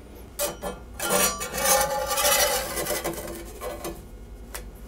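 A metal spatula and a knife scraping and clicking against a cast-iron skillet as a corn tortilla is lifted and flipped. A couple of clicks, then about two seconds of scraping, then a few more sharp clicks near the end.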